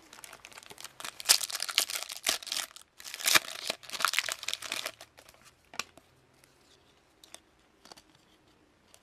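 A trading card pack wrapper being torn open and crinkled for about four seconds, followed by a few light clicks and rustles as the cards are handled.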